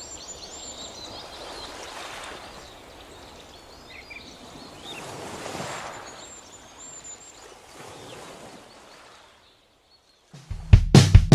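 Faint outdoor background noise with small birds chirping in short high bursts, then about a second of silence and a rock song with a heavy beat starting near the end.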